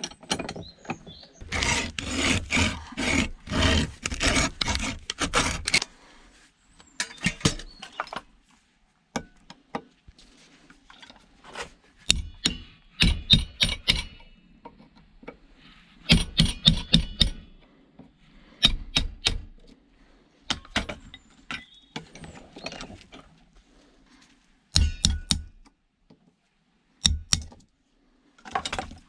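Rapid strokes of a hand saw cutting through metal for about four seconds, then scattered clinks, knocks and rattles of metal scrap being handled and pried apart.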